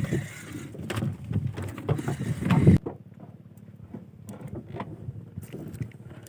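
Noise on a small fishing boat at sea: a low rumble of wind and water with scattered knocks. It drops suddenly about three seconds in to a quieter rumble with a few clicks.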